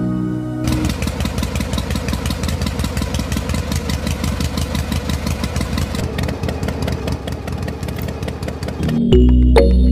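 Diesel engine running at a steady idle with a rapid, even beat. It starts under a second in, and electronic music takes over near the end.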